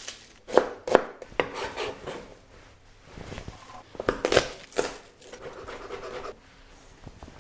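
Chef's knife chopping onion and garlic on a plastic cutting board: irregular sharp knocks of the blade on the board, a few near the start and a cluster around the middle, with softer rustling of onion skin being peeled between them.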